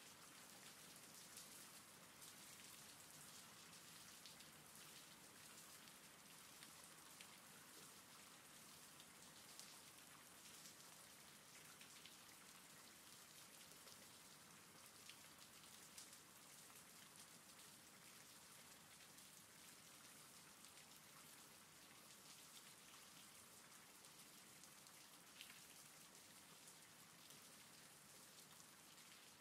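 Faint, steady rain falling, with now and then a single drop standing out as a brief tick.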